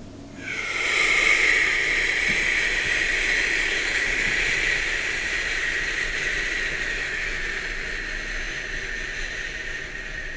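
A man blowing out the qigong healing sound 'xu' ('shu') through rounded lips: one long, breathy hiss on a single slow exhalation, starting about half a second in and slowly fading over about ten seconds.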